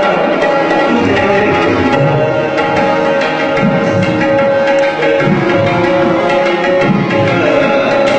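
Tabla playing: deep, resonant bass-drum strokes under quick, ringing right-hand strokes, over a steady held note.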